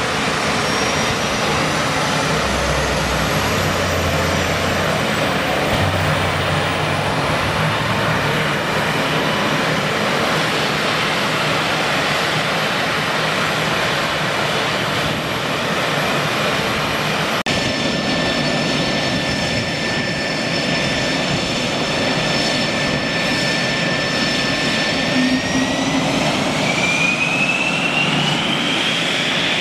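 Saab JAS 39 Gripen D's single Volvo RM12 turbofan running on the ground: a steady jet rumble with a high turbine whine. The sound breaks suddenly about two-thirds through. Near the end the whine climbs steadily in pitch as the engine spools up.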